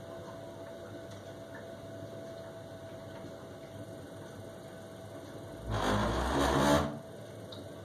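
Worcester Bosch 29CDi Classic combi boiler giving one loud, low, fluttering rumble, a 'fart' of about a second, about six seconds in, as the gas comes on or goes off at the burner. It rises out of a faint steady hum. This rumble is the fault that goes on to throw the boiler's EA error code.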